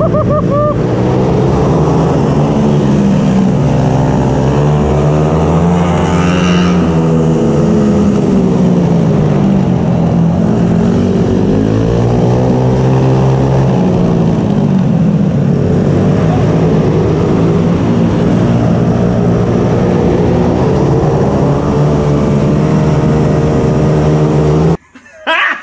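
Racing mini bike's small engine running hard, its pitch rising and falling again and again as it accelerates and backs off through corners, with a brief high squeal about six seconds in. The engine sound cuts off suddenly near the end.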